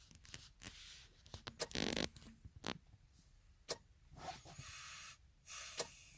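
Irregular scraping, rustling and sharp clicks, with a longer rasping burst about two seconds in and another near the end.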